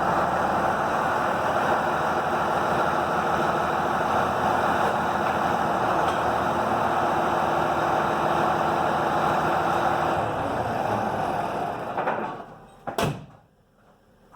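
An engine running steadily, fading out about twelve seconds in, followed by a single sharp knock.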